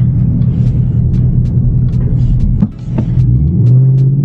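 Ford Mustang GT's 5.0-litre V8 running at low speed in traffic, heard from inside the cabin. Its note dips briefly about two-thirds in, then rises and steadies as the car pulls away.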